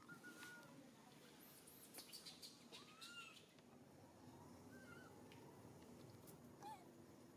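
Baby long-tailed macaque giving faint, short squeaky cries: a handful of separate squeals, with a few light clicks between them.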